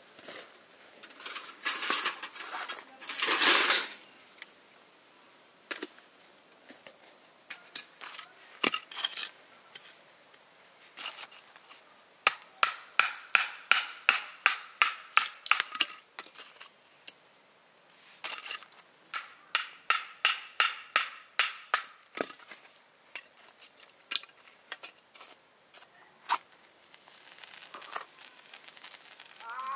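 Metal cookware and utensils being handled: rustling at first, then scattered clinks and taps, and two runs of quick, regular strikes of about five a second, each lasting a few seconds.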